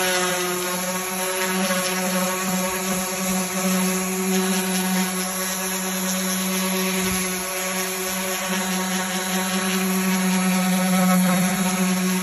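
Electric random orbital sander running steadily with an even motor hum as it sands old paint off a wooden door.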